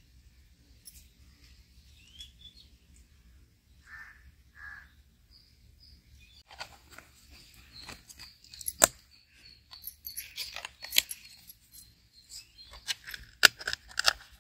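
Plastic kulfi-mould lids with wooden sticks being pressed and snapped onto filled plastic popsicle cups: a run of sharp plastic clicks and snaps starting about six seconds in, the loudest near the end.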